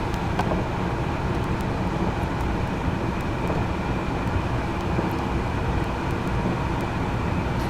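Steady running noise inside a car's cabin: the heater blowing with the engine running.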